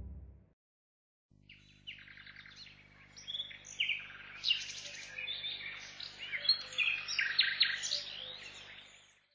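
A flock of small birds chirping and twittering, many quick overlapping calls, over a faint steady low hum. It comes in about a second and a half in and fades out near the end.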